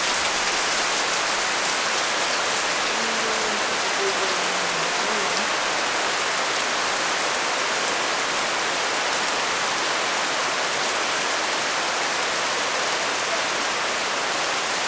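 Heavy rain falling steadily: a downpour with an even hiss.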